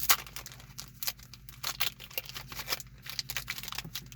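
Foil trading-card booster pack wrapper crinkling and rustling as it is opened, a quick irregular run of sharp crackles.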